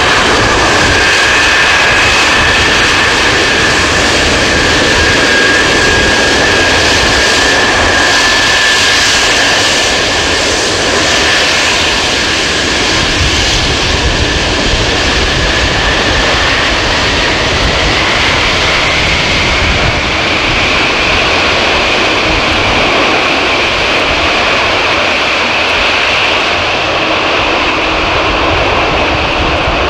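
Antonov An-225 Mriya's six turbofan engines running loud and steady: a broad jet rush with a high whine on top. The whine rises slightly in pitch about two-thirds of the way through.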